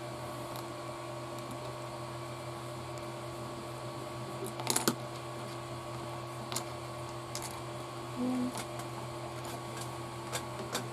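Small plastic kit parts clicking and tapping as they are handled and fitted by hand. There is a cluster of sharp clicks about five seconds in and a few lighter taps later, over a steady low background hum.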